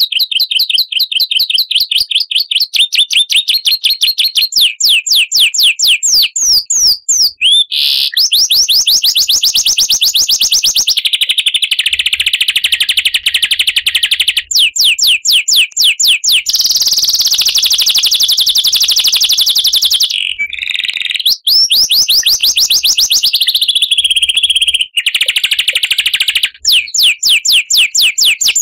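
Songbird singing a long, high-pitched song of rapid repeated notes and trills. The phrase pattern changes every few seconds, with only brief breaks.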